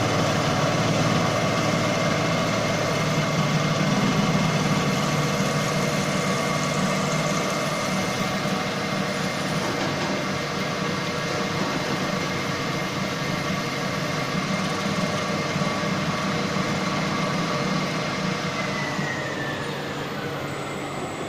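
Three-axis CNC drilling and facing machine running: a steady motor whine over a low hum. Near the end the whine drops in pitch as the machine winds down.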